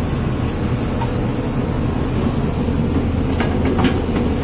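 JCB backhoe loader's diesel engine running steadily at a low, even drone, with a few short knocks near the end.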